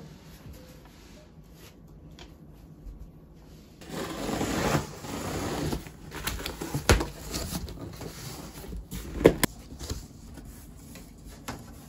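Large cardboard shipping box being opened by hand: packing tape pulled off the top seam in a rasp about four seconds in, then cardboard flaps scraping and a couple of sharp knocks as they are folded back.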